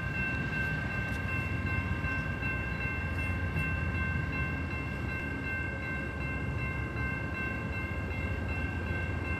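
Amtrak train running at a grade crossing: a steady low rumble with several steady high tones held over it.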